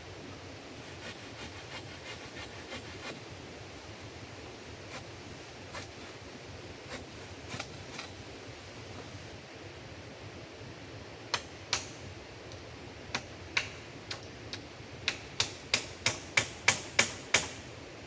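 Steady hiss with scattered light taps, then a run of about a dozen hard, sharp knocks, roughly three a second and quickening, over the last three seconds, like a hand tool striking wood.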